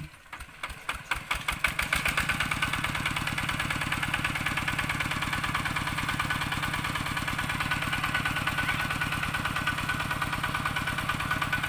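Farm tractor engine starting: a few slow, uneven firing beats over about the first two seconds that quickly speed up and settle into steady, even running.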